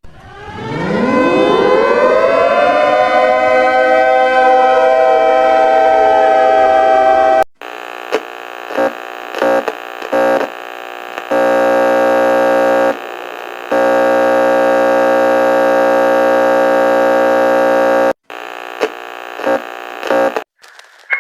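Civil defense siren winding up from a low growl to a steady wail over about seven seconds. It then cuts suddenly to a steady alarm tone made of several pitches at once, which dips and briefly drops out a few times.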